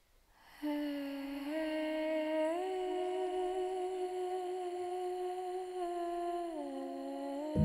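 Wordless humming of a slow melody: a few long held notes that glide up twice and later step back down, with fuller instrumental music coming in at the very end.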